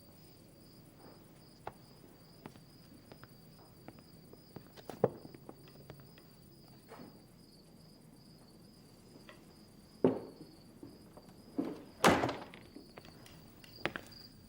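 Crickets chirping steadily, with scattered knocks and thuds such as footsteps or a door. The loudest thuds come about five, ten and twelve seconds in.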